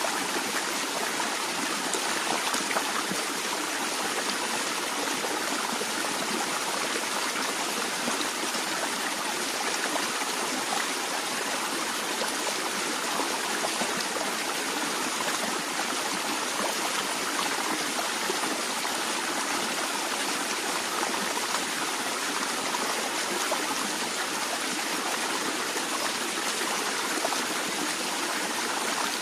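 Natural water flowing gently and steadily, an even rushing sound with little deep rumble and no change in level.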